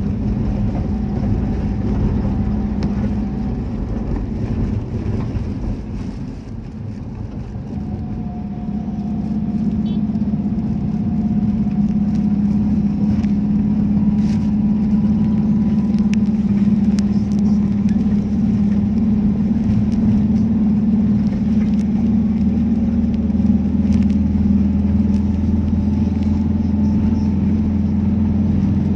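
Motor vehicle heard from inside while driving: a steady engine hum with road rumble. The sound dips a little about six seconds in, then builds up again and holds steady.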